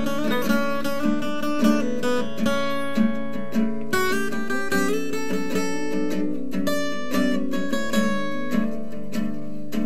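Instrumental passage of a song: acoustic guitar picked and strummed in a steady rhythm, with no singing.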